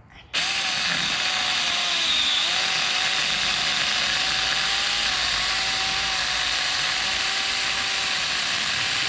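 Saker mini battery-powered chainsaw switching on about half a second in and running steadily as it cuts across a small stump. Its motor whine wavers slightly under the cut.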